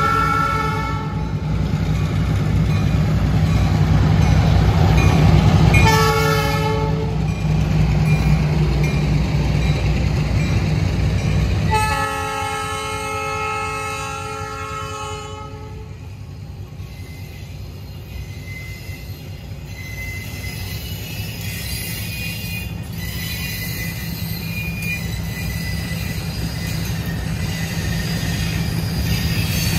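An EMD SW1200 and a Baldwin VO1000M diesel switcher pass with a heavy low engine rumble, sounding the horn three times: the end of one blast at the start, a short blast about six seconds in, and a long blast from about twelve to fifteen seconds. After that the freight cars roll past with steady wheel-on-rail noise, which grows louder toward the end.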